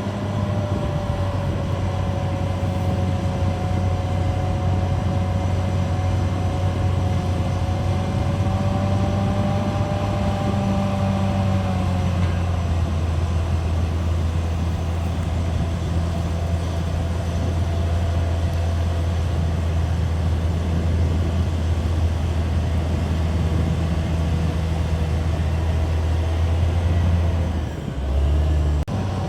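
CAT D6R XL bulldozer's diesel engine running steadily under load, a low drone with a whine above it that drops slightly in pitch about twelve seconds in; the drone dips briefly near the end.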